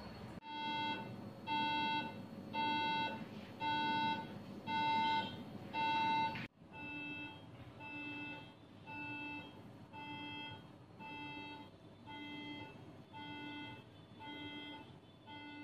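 Radiofrequency generator beeping in a steady pulse, a buzzy half-second tone repeating a little faster than once a second, as it delivers radiofrequency energy and heats the probe gradually. The beeps drop to a quieter level about six and a half seconds in.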